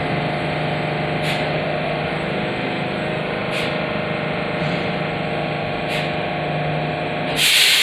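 R46 subway train standing in the station, its on-board equipment running with a steady hum and whine. Near the end a loud hiss starts.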